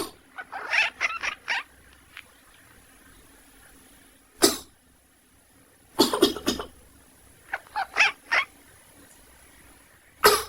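A person coughs several times, and a sleeping cat answers with short quack-like calls, four or five in quick succession, twice: soon after the first cough and again after a second bout of coughing.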